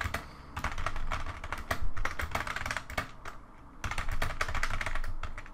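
Typing on a computer keyboard: quick runs of key clicks, with a short lull about three seconds in before the typing picks up again.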